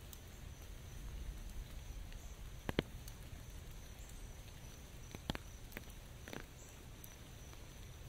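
Scattered water drops tapping on an umbrella overhead: a quick pair of sharp taps near the middle, then three more spread over the next few seconds, over a faint steady hiss of light rain.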